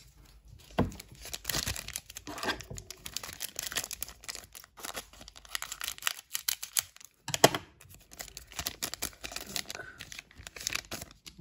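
Foil wrapper of a trading-card pack crinkling and rustling as it is cut open with scissors and the cards are pulled out. There is a sharp click about a second in and a louder one about seven seconds in.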